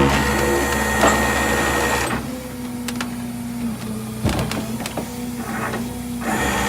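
A small motor running steadily with a few clicks. It is louder for about the first two seconds, quieter after that, and picks up again near the end.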